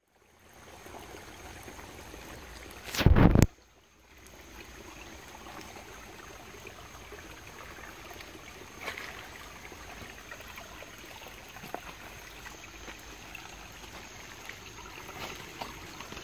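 Steady ambience of water dripping and trickling in rainy woods, with scattered small drips. About three seconds in comes a brief loud burst of noise, then a moment of near silence.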